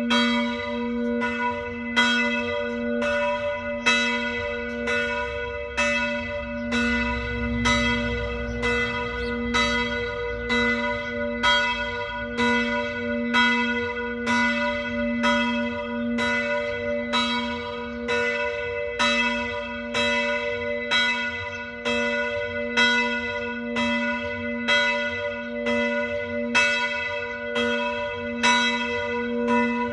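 Full peal of several church bells of different pitches swinging and ringing together, with strokes following each other in an even, overlapping rhythm of somewhat under two a second.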